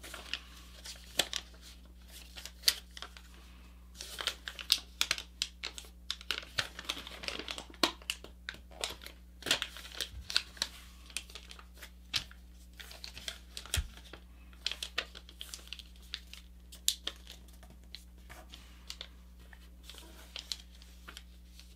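A square sheet of paper being folded and creased by hand: irregular crinkling and crackling of the paper. The crackles come thickest through the middle and thin out near the end, over a faint steady low hum.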